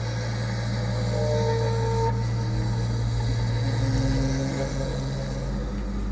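Ambient drone: a low steady hum with a few held higher tones that come in and fade out.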